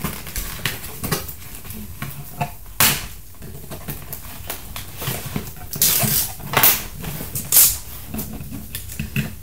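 Scissors snipping the elastics that hold a toy shield to a plastic packaging tray, with the plastic crinkling and knocking as it is handled. The snips and crinkles come irregularly; the loudest are about three, six and seven and a half seconds in.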